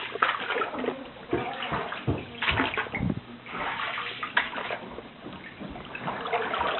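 Deep basement floodwater sloshing and splashing in irregular bursts, as from someone moving through it.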